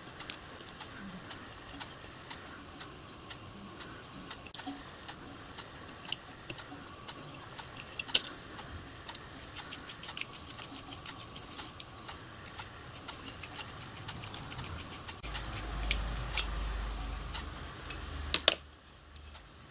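Light clicks and taps of small steel parts and a small screwdriver as the tailstock slideway block's keeper plates and screws are handled and fitted. A low rumble comes in for a few seconds near the end and ends in a sharp click.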